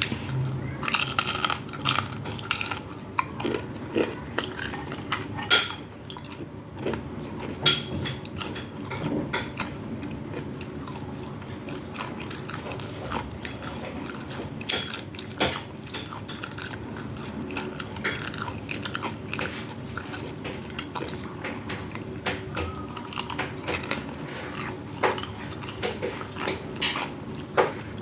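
Close-miked eating: steady biting and chewing with irregular crunchy clicks and smacks, and now and then the clink of cutlery or a plate.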